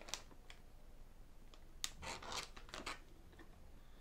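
Faint crisp crackles of a hard-shelled chocolate macaron being bitten and chewed, mixed with the rustle of the clear plastic bag it is held in, with a denser run of crackles about two seconds in.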